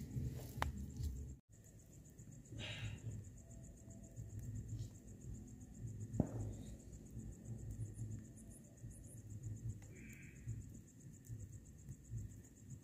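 Crickets chirping in a steady high trill, faint, over a low background rumble. A few soft clicks come in the first second.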